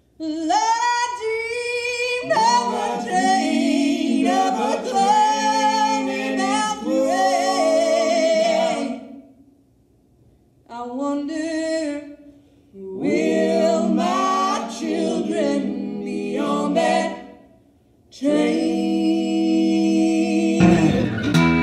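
Unaccompanied group vocal harmony singing a bluegrass gospel song, in phrases broken by short pauses. The band's instruments come in just before the end.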